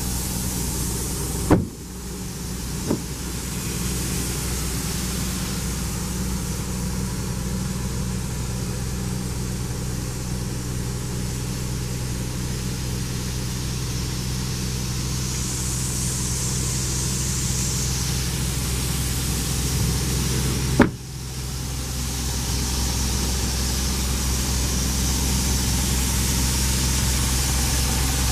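Mitsubishi L200 pickup's diesel engine idling steadily. Two sharp knocks break in, one a second or two in and one about two-thirds through.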